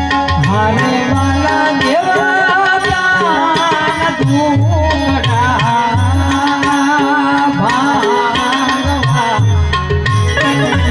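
Instrumental passage of a Gujarati prabhatiyu devotional song: tabla playing a steady rhythm, the low drum's pitch sliding up and down, under harmonium and a wavering lead melody.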